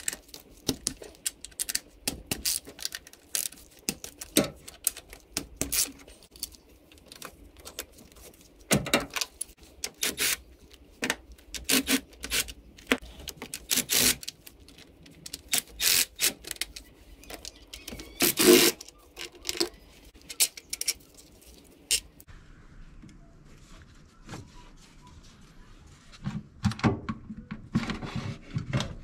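Ratchet clicking and metal tools clinking on bolts as the 12 mm bolts and nuts holding the intake manifold are undone, in many short ticks with a few louder clanks. It goes quieter about three quarters of the way through, and there are handling knocks near the end.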